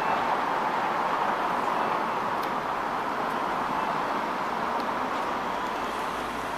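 Steady outdoor city background noise, the even hiss and hum of road traffic.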